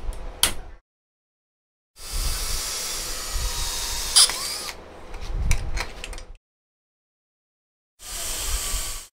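Power drill boring through a small steel bracket clamped in a bench vise, in two stretches broken by abrupt dead-silent cuts, with a sharp high crack partway through the first. A few short metal clicks come first as the part is set in the vise.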